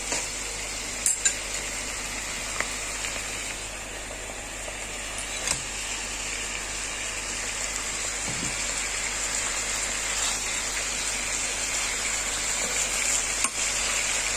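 Pork steaks sizzling steadily in a pan in their marinade sauce with onions and lemon slices, with a few faint clicks.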